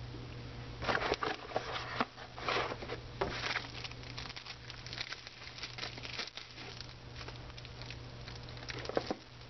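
Sealed plastic parts bag crinkling and rustling as it is handled, with irregular small clicks and taps, busiest in the first few seconds.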